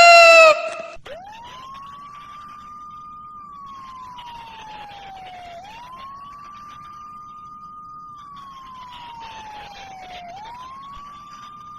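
A siren wailing. A single tone rises quickly, holds, then slowly sinks, in three cycles about four and a half seconds apart.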